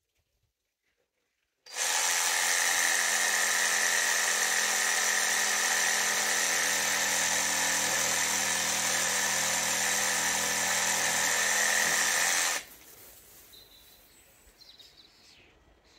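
Evolution cordless reciprocating saw running as it cuts a tree branch overhead. It starts suddenly about two seconds in, runs steadily for about eleven seconds and cuts off abruptly.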